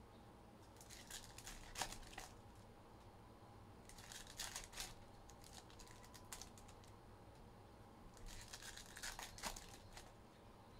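Foil trading-card pack wrappers being torn open and crinkled, in three short bouts of crackling.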